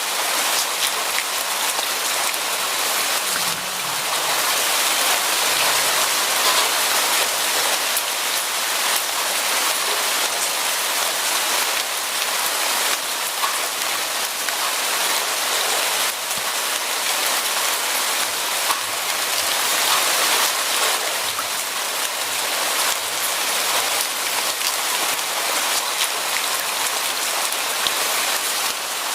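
Steady rain falling, a dense even hiss of drops on a surface with fine drop patter throughout.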